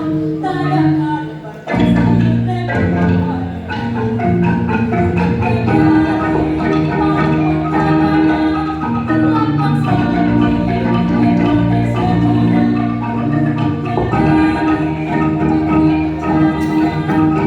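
Kolintang ensemble playing: wooden xylophones struck with mallets over sustained bass notes, with a brief break about a second and a half in.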